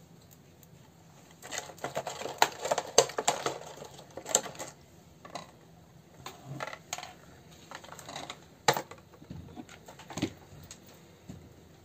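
Small real hazelnuts clattering against one another in a plastic bag as a hand rummages through them. There is a dense run of clicks from about one and a half to four and a half seconds in, then scattered single clicks.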